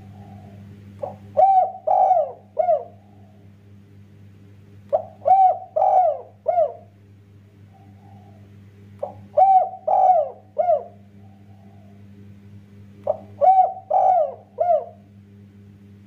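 Spotted dove cooing: four phrases, about four seconds apart, each a short opening note followed by three quick coos, over a faint steady low hum.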